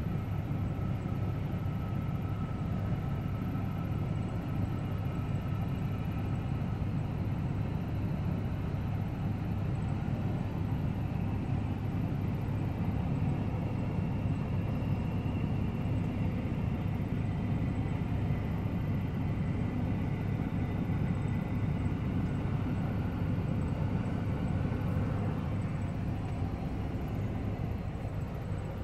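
Steady low rumble with the faint whine of a jet airliner on landing approach.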